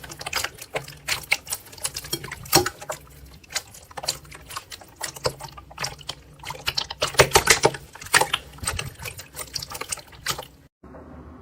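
Slime being squeezed and pressed by hand, giving rapid wet crackling and popping clicks in irregular clusters. The crackling cuts off suddenly near the end.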